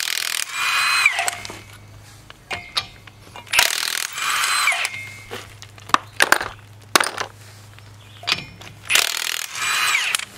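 Lug nuts on a Chevy Express van's front wheel being turned off with a 22 mm socket on a hand wrench: three scraping spells about a second long, a few seconds apart, each with a falling squeak, and a few clicks of the socket and wrench between them.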